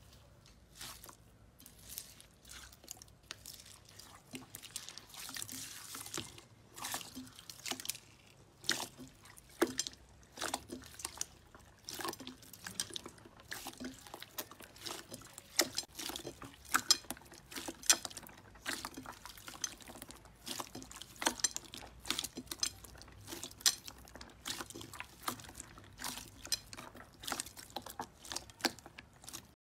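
Purple slime mixed with small beads being squeezed and kneaded by hand: a steady run of irregular wet squelches and small clicky pops as the beads and slime are pressed.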